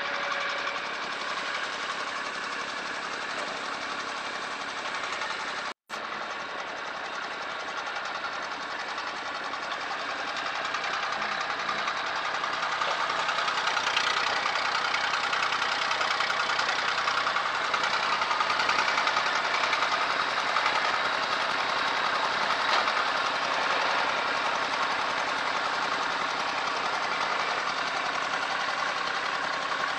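Massey Ferguson MF20C tractor engine running steadily as the tractor works its front loader, growing louder from about ten seconds in. A split-second gap in the sound comes just before six seconds.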